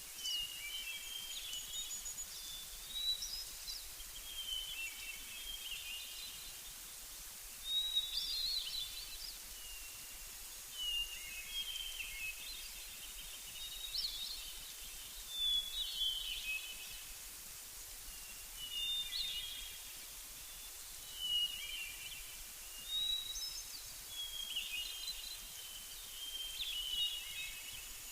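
Songbirds singing short, chirping phrases every second or two over a steady high hiss.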